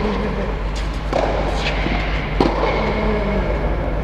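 Tennis balls struck by racquets in a rally, a few sharp hits about a second apart, each ringing on in the echoing domed hall over a steady low hum.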